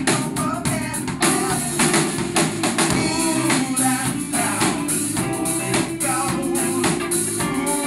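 Live rock band playing: sung vocals over electric bass guitar and drums keeping a steady beat.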